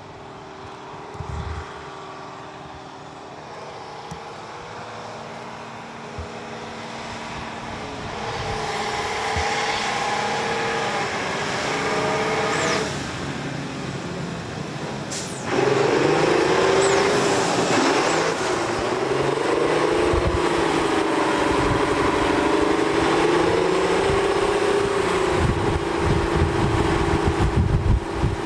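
Heavy diesel engine of a Faun SLT 50 8x8 tank transporter driving off-road, growing steadily louder as the truck approaches. It jumps louder about halfway through, and after that the engine note rises and falls as the revs change under load.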